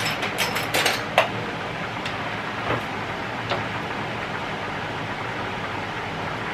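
Spatula and ladle stirring and scraping in a pot of simmering goulash, with quick clinks and knocks against the pan in the first second and a few single knocks over the next few seconds, over a steady hiss.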